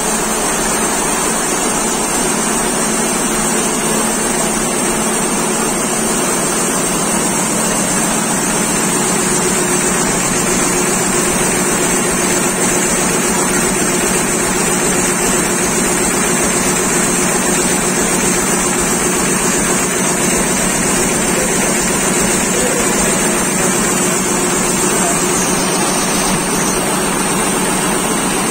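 Richpeace multi-needle quilting and embroidery machine running steadily, its row of needles stitching at speed with a constant mechanical hum.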